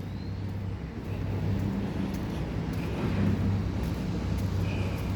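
Steady low engine drone of a running vehicle or machine, with a faint even background hiss.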